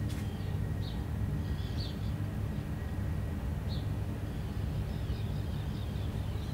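Steady low engine rumble from a passing container ship, with a few short bird chirps over it.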